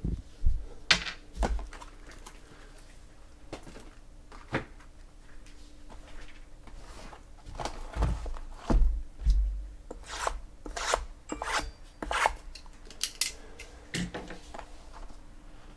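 Cardboard boxes of trading cards being handled and stacked on a table: irregular taps, knocks and rubs as the boxes are picked up, slid against each other and set down, with a few low thuds.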